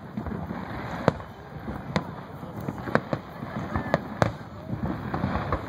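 Aerial fireworks shells bursting: about five sharp bangs, roughly one a second, over a steady background of crowd voices.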